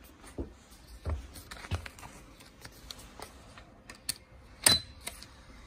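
Clicks and knocks of a paper ticket being handled and pushed into a tram's ticket validator. The loudest is a sharp clunk about three-quarters of the way through as the machine stamps the ticket, followed at once by a short high beep.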